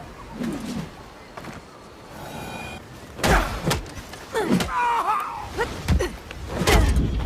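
Bo staff combat sound effects: after a quieter stretch, a run of sharp knocks and strikes begins about three seconds in, mixed with short sliding, voice-like whooshes.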